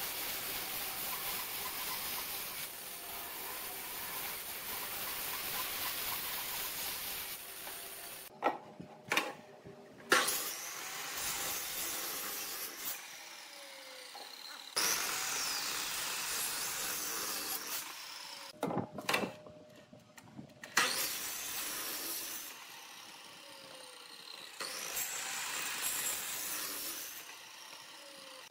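Band saw ripping through a hardwood block with a steady cutting hiss. After about eight seconds come a few sharp knocks of wood being handled, then a sliding compound mitre saw runs in several separate bursts, its motor pitch sliding as it spins up and winds down.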